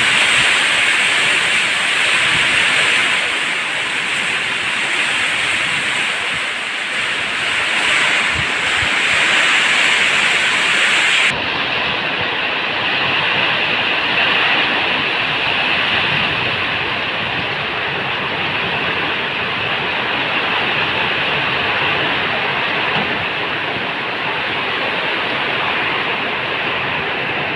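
Heavy rain pouring steadily in a dense, even hiss. About eleven seconds in the sound abruptly turns duller, losing its highest hiss, and then carries on steady.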